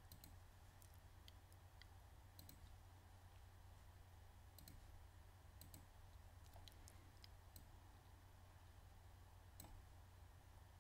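Faint computer mouse clicks, scattered and some in quick pairs, as commands are selected and added in a software dialog, over a steady low hum.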